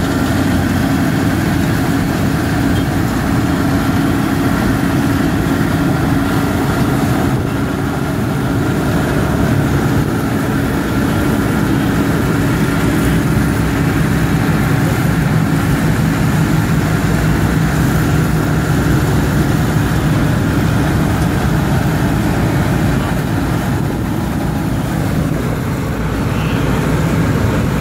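Several diesel tractor engines running steadily with a constant drone and a few held low tones, without revving.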